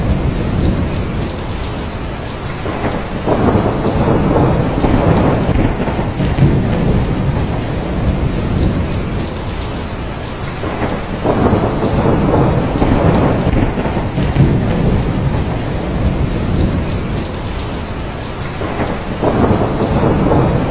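Steady heavy rain with low, rolling thunder, the storm swelling louder three times, about every eight seconds.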